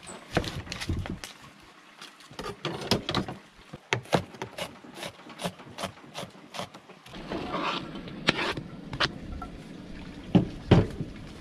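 Kitchen knife chopping an onion on a plastic cutting board, a rapid series of sharp knocks. Near the end the diced onion is scraped off the board into a cast-iron skillet, with a couple of louder knocks.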